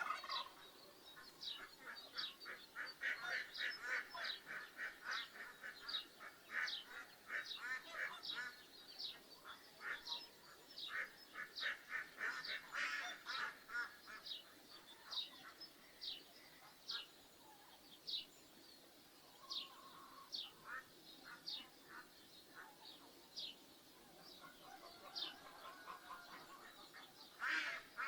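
Domestic ducks quacking in rapid runs, some louder and some quieter, with a small bird chirping steadily about once a second over them.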